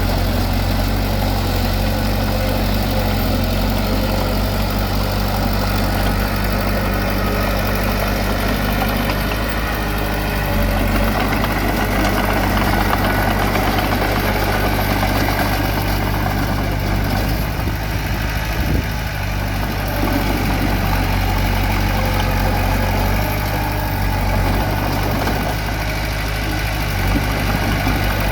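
Heavy machine's diesel engine running steadily at an even, idle-like speed, with a low droning hum.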